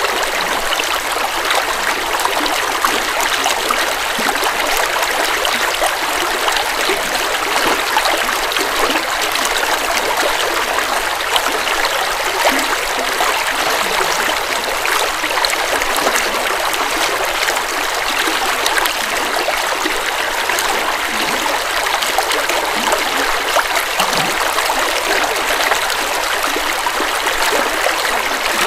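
River water flowing over rocks, a steady rushing splash with no pauses.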